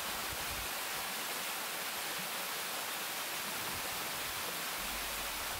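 Waterfall rushing steadily: water falling down a rock face makes an even, unbroken hiss.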